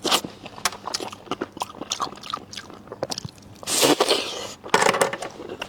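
Close-miked eating: biting and chewing on stewed rib meat, with many wet clicks. There are two longer, louder rushes of noise about four and five seconds in.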